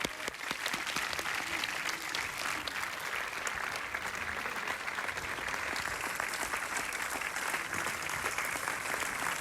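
Cinema audience applauding steadily, a dense patter of many hands clapping, welcoming a guest announced on stage.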